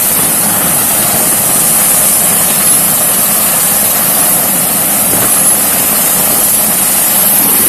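Large helicopter running on the ground with its main and tail rotors turning: a steady, loud rush of engine and rotor noise with a high hiss.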